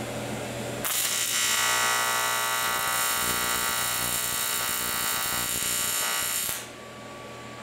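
AC TIG welding arc buzzing on aluminum plate. It strikes about a second in and cuts off sharply near the end. Filler rod is being added at the end of the joint to build a small dam to weld into.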